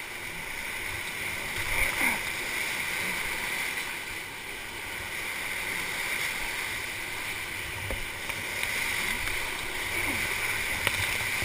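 Whitewater rapids rushing steadily around an inflatable paddle raft, swelling briefly about two seconds in.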